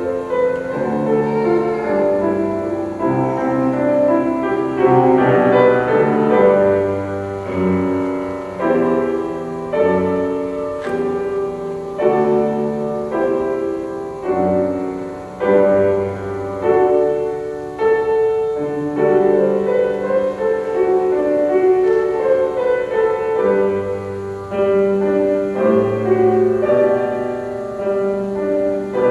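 Live instrumental music led by piano, playing slow, sustained chords over a bass line.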